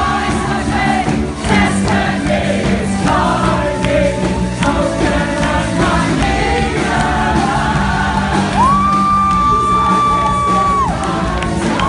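A live band plays loud dance music with singing, while the crowd cheers and whoops along. About nine seconds in, one long high note is held for about two seconds.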